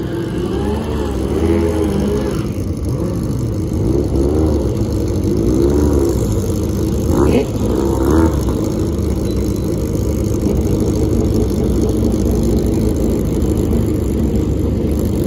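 A motor vehicle engine revving up and down repeatedly over a steady low rumble, with two short sharp sounds a little past halfway.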